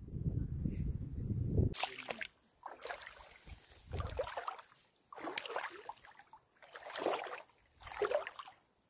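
A low rumbling noise for the first couple of seconds, then shallow lake water sloshing and splashing in repeated strokes, about one a second.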